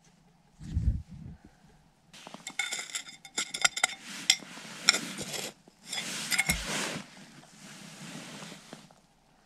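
A metal digging knife scraping and chopping through gritty dirt, in two bursts, with many sharp clinks and short ringing tones as the blade strikes grit and stones. There is a soft thump about a second in.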